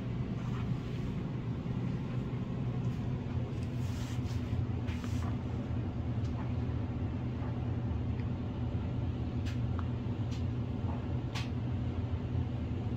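A steady low hum, with a few light taps and clicks as a toddler's hands touch the food and a divided silicone plate on the table.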